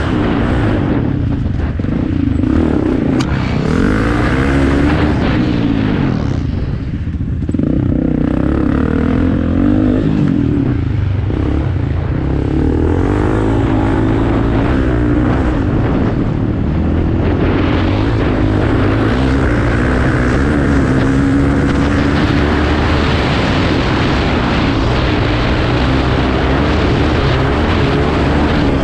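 Off-road racing motorcycle engines running loud, their pitch rising and falling as the bikes rev and ride past.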